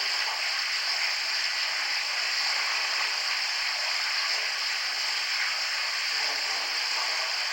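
Steady high-pitched hiss that does not change, with no distinct events.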